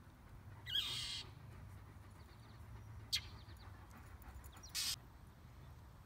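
A bird's harsh scolding calls: a loud call about a second in, a short sharp one around three seconds, and another near five seconds. These are the alarm calls of a parent bird defending its nest against a dog.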